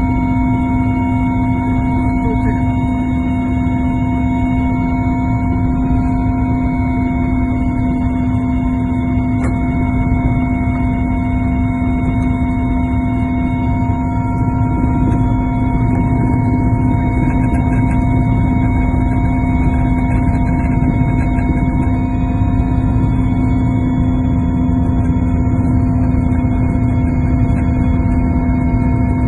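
Helicopter in flight heard from inside the cabin: a loud, steady drone of engine and rotor under several constant whining tones.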